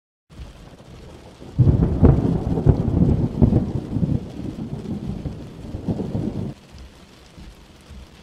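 Thunderstorm: steady rain, with a long, low rolling rumble of thunder starting about a second and a half in and ending about five seconds later, after which the rain goes on more faintly.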